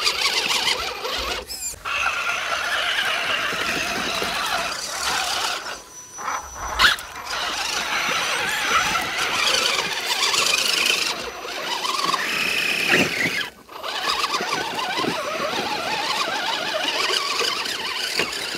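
Electric motors and geared drivetrains of 1/10-scale RC crawler trucks whining and squealing as they crawl over creek rocks, broken by a few short gaps.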